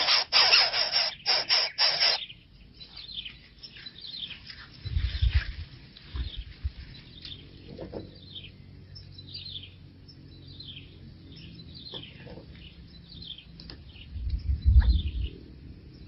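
Nestlings begging in the nest: a loud harsh, raspy burst for about the first two seconds, then a long run of short, high, falling chirps, with low thumps about five seconds in and near the end.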